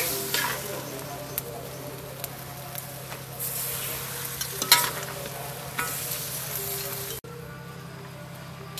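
Glass noodles and shrimp sizzling in a wok as they are tossed and stirred, with metal utensils clicking and scraping against the pan; one sharper clink comes a little before five seconds in. The frying sound drops off abruptly just past seven seconds.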